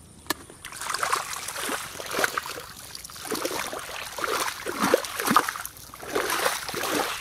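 Feet wading and stamping through shallow muddy water, a run of irregular sloshing splashes beginning about a second in.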